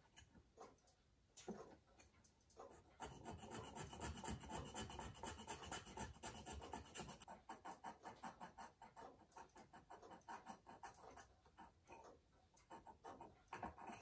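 Small hand-held steel cutting tool scraping the inside edge of a metal pocket-watch case ring in short, rapid strokes. Faint; the strokes run together and are loudest from about three to seven seconds in, then come separately at about four or five a second.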